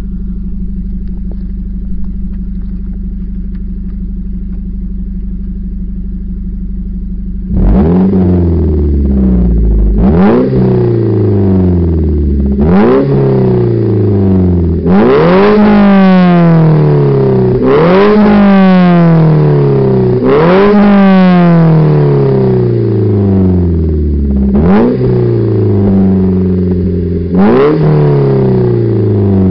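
Ford Focus Mk2 2.0-litre four-cylinder engine through a Bastuck stainless-steel cat-back exhaust, heard at the twin tailpipes: idling steadily, then from about eight seconds in revved about eight times, each rev rising quickly and falling back toward idle, a few held a moment longer.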